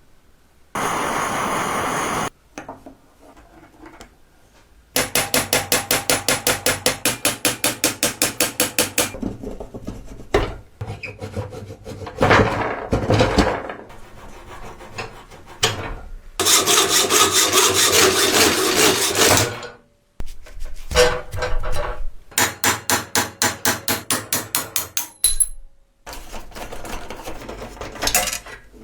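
Hand tools working the rusted metal parts of an antique potato peeler. There are runs of rapid, even strokes at about five a second, like filing or scrubbing, a steady rasping noise for about three seconds midway, and scattered knocks.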